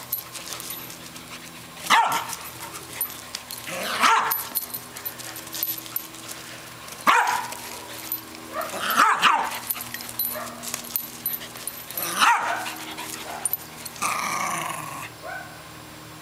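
A dog barking in a series of about six sharp, high barks, each falling in pitch, every two to three seconds, with a low steady growl between them.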